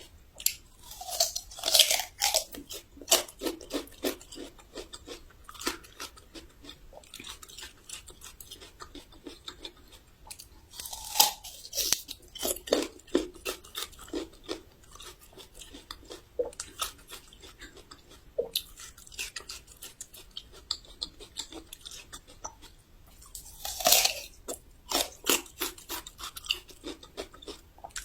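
Raw ginger root being bitten and chewed close to the microphone, crisp and crunchy. Three big bites come about two seconds in, around the middle and near the end, each followed by a run of quick crunching chews.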